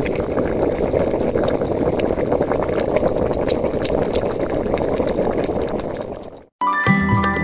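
Liquid boiling, a steady bubbling with scattered small pops, which fades out about six and a half seconds in. Music starts just before the end.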